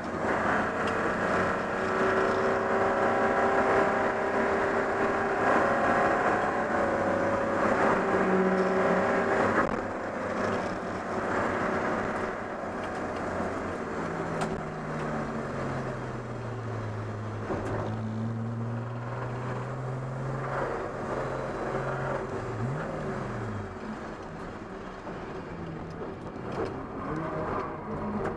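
Race car engine heard from inside the cabin, running loud at steady revs, then dropping to low revs about ten seconds in and staying low and uneven as the car slows. The driver says the engine has lost all its power to a failed connecting-rod bearing.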